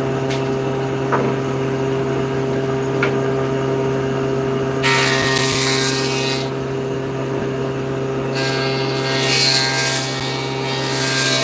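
Table saw motor running with a steady hum, its blade cutting through a wooden board twice: a shorter cut about halfway through and a longer one near the end.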